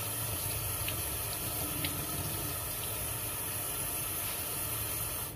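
Kitchen tap running steadily into a sink, with a few faint clicks.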